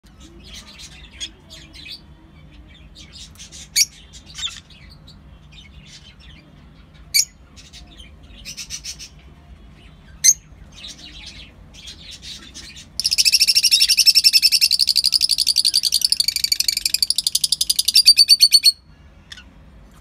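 Caged rosy-faced lovebirds calling: scattered high chirps with a few sharp single shrill calls, then, past the middle, a loud rapid chatter of fast repeated notes lasting about six seconds that stops abruptly.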